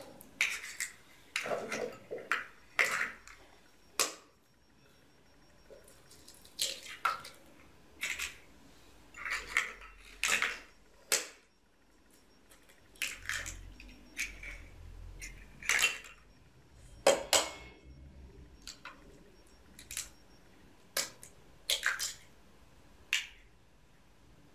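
Hen's eggs cracked one after another: sharp taps of shell against a bowl and light clinks of shells dropped into a glass bowl, coming in short clusters with quiet gaps between.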